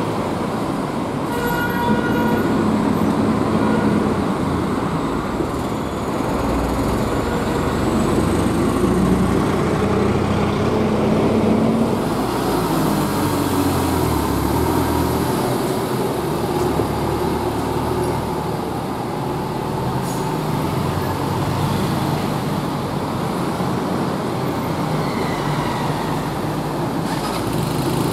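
Busy street traffic: motorcycles and city buses running and passing, with a short horn toot about two seconds in.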